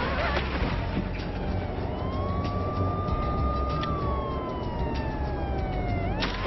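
Police siren wailing, its pitch sliding slowly down, up, then down again, over the low rumble of car engines, with a sharp crack near the end.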